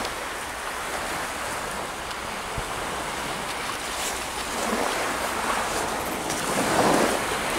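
Baltic Sea surf washing onto a sandy beach: a continuous rush of breaking waves that swells louder twice in the second half.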